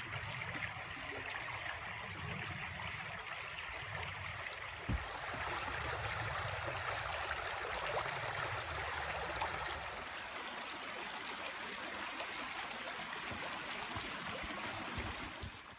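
A creek's water running steadily, with a low rumble underneath for the first ten seconds or so and a single knock about five seconds in.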